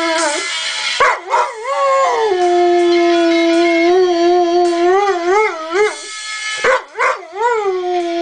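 A pet dog howling in long, drawn-out notes. Each note opens with a rising and falling swoop, and one wavers up and down near its end. The dog howls in answer to one particular phone ringtone.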